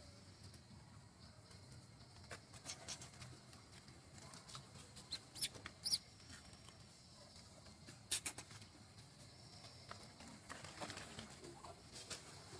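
Light, scattered crackling and rustling of dry leaf litter as macaques move over it, with two short high chirps about halfway through and a pair of sharp clicks a couple of seconds later.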